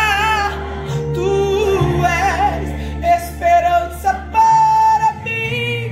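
A woman singing a Portuguese worship song with vibrato over backing music.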